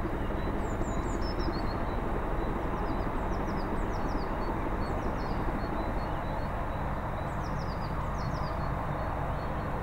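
Steady low rumble of a distant SJ class B steam locomotive and its train approaching, with small birds chirping in short falling notes now and then above it.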